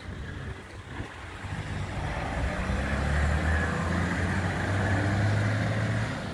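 A white SUV driving past on the street: engine hum and tyre noise growing louder to a peak in the middle, then fading near the end.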